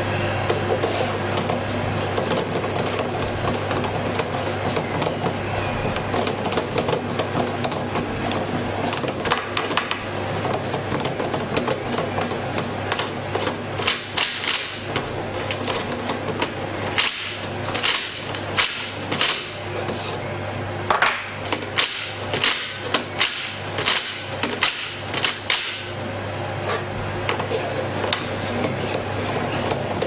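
An aluminium ring fitted with magnets being turned around the cylinder knob of an electronic RFID door lock, rubbing and scraping with sharp clicks and knocks that come thickest from about halfway in, over a steady low hum. It is a bypass attack: the spinning magnets drive the coils inside the knob to power the lock's motor.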